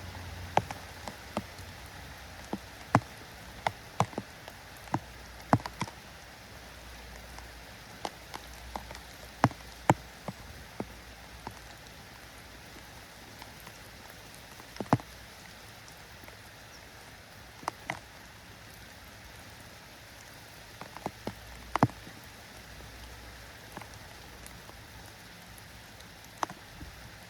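Steady rain with a soft hiss, and irregular sharp taps of single drops landing on a hard surface close by, a few of them much louder than the rest.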